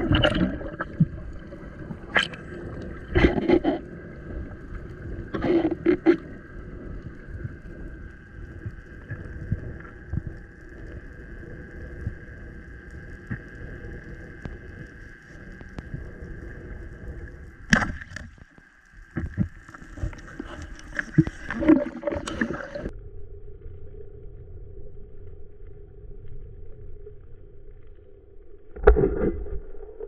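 Underwater sound around a freediver's speargun: a steady hum holding a low and a higher tone, broken by scattered knocks and splashy bursts. Near the end the hum changes suddenly to a single lower tone.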